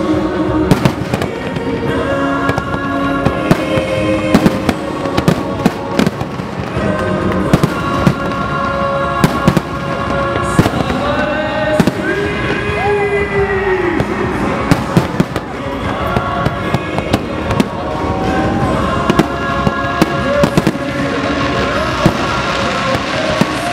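Fireworks display: a rapid, irregular series of sharp bangs and cracks from bursting shells, over music with sustained notes.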